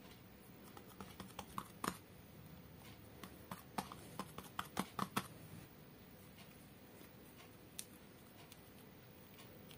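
Hands pressing and patting a slab of slime topped with soft clay, giving a run of sharp sticky clicks and pops from about a second in to five seconds in. One more click comes about two-thirds of the way through.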